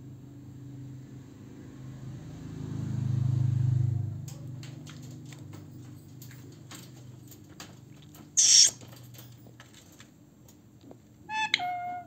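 Rose-ringed parakeet making a low, steady humming "hmmm", swelling loudest about three seconds in and then fading. A short harsh screech comes about eight seconds in, and a brief squawk that rises and falls comes near the end.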